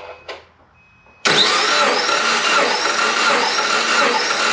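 Starter cranking a Subaru 2.5-litre boxer four with its spark plugs out, throttle held wide open and fuel pump disabled, so the engine turns over without firing; the run starts suddenly about a second in and goes on steadily with an even, repeating beat. This is a compression test cranking run, which brings cylinder 2 to a healthy 185 psi.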